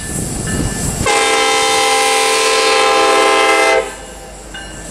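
Union Pacific 1989's air horn, an EMD SD70ACe, sounds one long, steady blast of several notes together. It starts about a second in and cuts off abruptly near the end, over the rumble of the passing locomotives.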